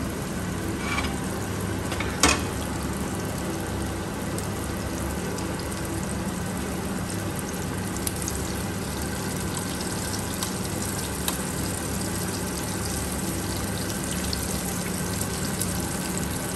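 Breaded beef escalopes sizzling and crackling steadily as they shallow-fry in oil with a little butter, with a single sharp click about two seconds in.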